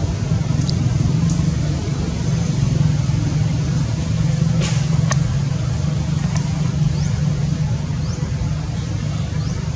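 Steady low outdoor rumble, with a few faint, short high chirps scattered through it.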